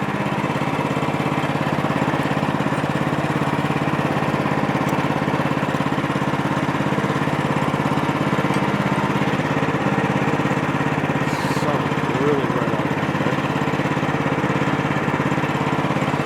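Gas engine of a Woodland Mills HM130MAX portable bandsaw mill running steadily at an even speed.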